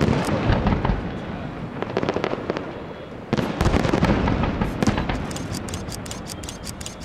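Fireworks display: aerial shells bursting with booms, a big burst about three seconds in, then a rapid run of crackling pops near the end.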